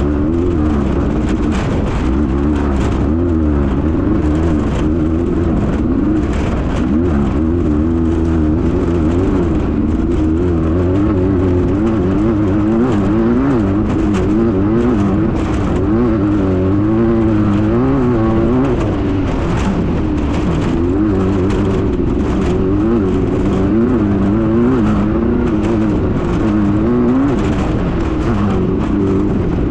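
Class 9 desert race buggy's air-cooled Volkswagen engine running hard, its pitch rising and falling every second or so as the revs change, with rattles and knocks mixed in throughout.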